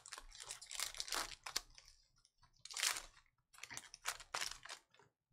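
Foil trading-card pack wrapper crinkling and rustling in several short bursts as the pack is opened and the cards are pulled out.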